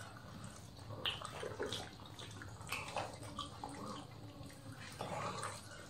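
Wet, irregular smacking and squelching of eating by hand: fingers mashing rice with mutton curry on a banana leaf, and mouths chewing.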